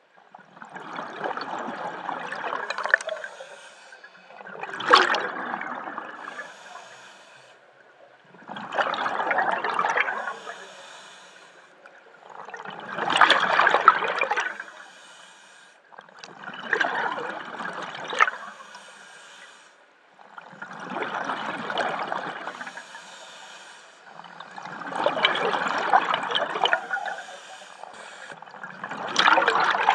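Scuba diver breathing through a regulator underwater: bursts of hissing inhalation and rushing exhaled bubbles, each lasting a second or two and coming roughly every four seconds.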